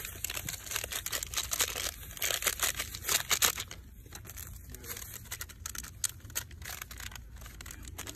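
Plastic packaging crinkling and rustling in the hands, an irregular crackle that is loudest for a stretch about two to three and a half seconds in.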